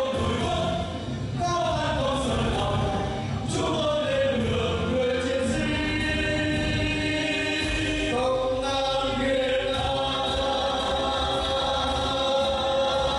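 Background music with singing voices, holding long notes that slide between pitches.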